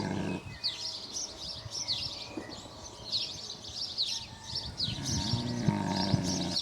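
Small birds chirping and twittering throughout, with a sleeping pig's low snore at the very start and again over the last second and a half.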